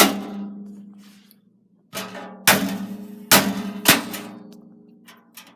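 Sharp knocks on a metal PC case as a part is tapped into place with a small tool, each knock leaving the sheet-metal panel ringing. There are about five hard knocks, two close together about two and a half seconds in, then lighter taps near the end.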